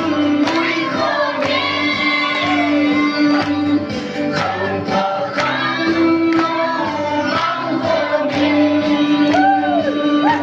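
A group of people singing together, led by a man on a microphone, over amplified backing music with a steady beat and a long held low note.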